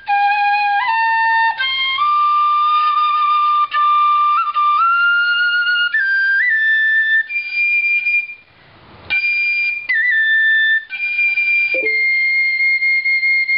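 Vietnamese bamboo transverse flute (sáo trúc) playing a slow melodic phrase of clear held notes that climb step by step in pitch, with small grace-note flicks between notes. The playing breaks off briefly about eight seconds in, then resumes.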